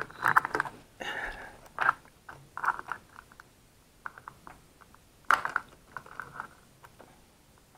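Hands handling a small plastic FPV monitor and its metal mounting bracket while fitting them together: irregular small clicks, taps and brief scrapes, with a sharper knock about five seconds in.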